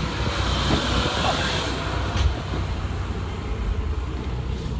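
Bobcat E35 mini excavator's diesel engine running, heard from inside the closed cab; about two seconds in the low rumble and hiss ease off as the engine settles to auto idle.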